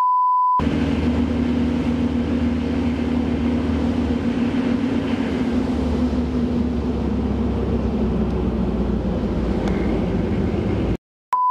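A steady beep tone for about half a second, then the steady running noise of a pickup truck driving along a paved road: low engine drone with wind and road noise, as heard from the open truck bed. It cuts off just before the end, where the beep tone returns.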